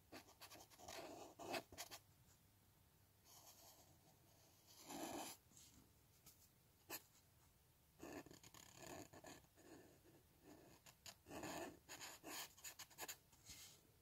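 Felt-tip marker drawn across paper in short, irregular strokes with pauses between them, faint.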